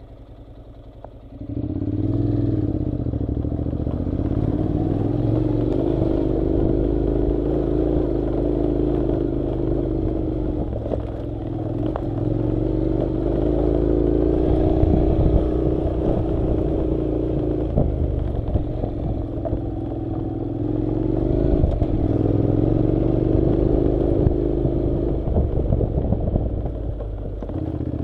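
Honda NC700's parallel-twin engine running while the motorcycle is ridden, its pitch rising and falling as the throttle is opened and eased off. It comes in abruptly about a second and a half in.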